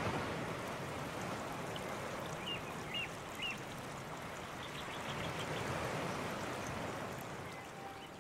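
Fountain water spilling over a stone basin rim and splashing into the pool below: a steady rush of falling water. Three short high chirps stand out briefly near the middle.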